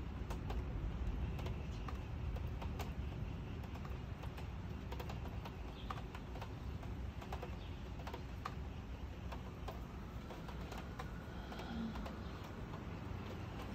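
Rainwater dripping after a thunderstorm, irregular light ticks scattered throughout over a low, steady rumble.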